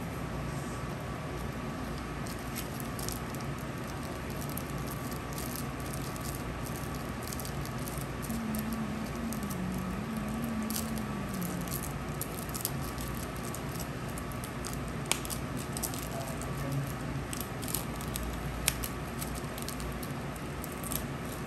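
Scattered light clicks and taps over a steady background hum, with two sharper clicks in the second half.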